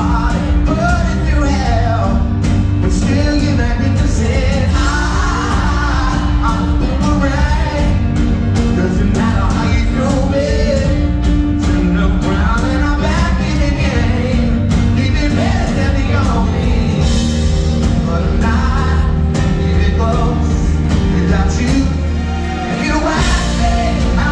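Live pop-rock band playing loud, with a male lead singer at a keyboard over electric guitars, bass guitar and a drum kit. The bass and drums drop away for a moment near the end.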